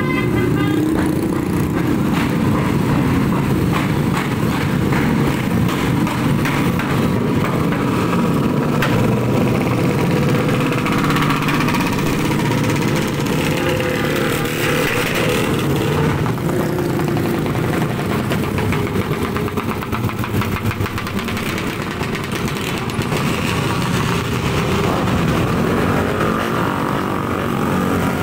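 A stream of small motor scooters and motorcycles passing one after another, their engines running in a continuous overlapping mix whose pitch rises and falls as each one goes by.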